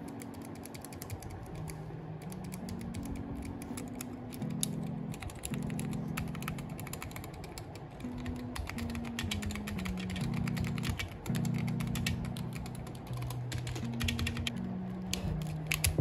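Typing on an Akko Sakura Jelly mechanical keyboard: quick, irregular key clicks, over soft background music with slow, held low notes.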